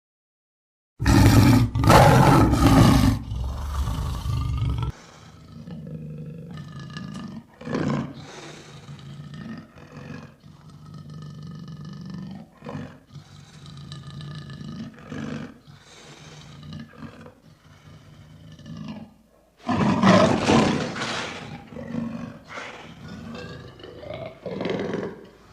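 Lion roaring: after about a second of silence, a loud roar lasting about four seconds, then a run of quieter, shorter calls, and a second loud roar about twenty seconds in.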